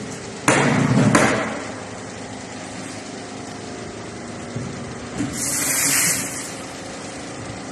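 Two loud knocks about half a second apart, then a short high hiss, building and fading about five seconds in, from an espresso machine's steam wand being purged. A steady machine hum runs underneath.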